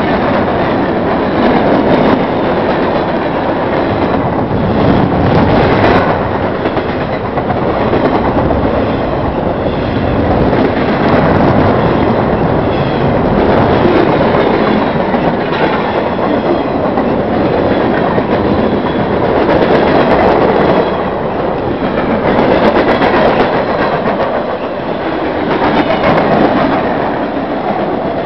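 Cars of a mixed freight train rolling past on the rails: a loud, steady noise of wheels on track that swells and eases every few seconds.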